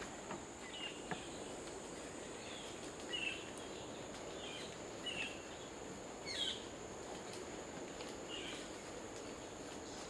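Forest ambience: insects drone steadily at a high pitch while a bird gives several short chirps, one near the middle sliding downward.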